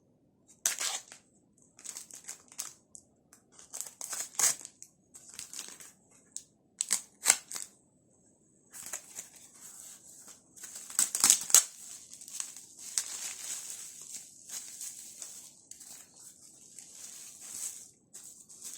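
Parcel packaging being unwrapped by hand: irregular crinkling, rustling and tearing, with several sharp crackles and a brief pause about halfway through.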